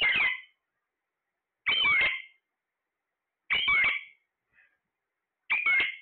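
Alexandrine parakeet giving a short call over and over, about every two seconds, four calls in all, each about half a second long with a bending pitch.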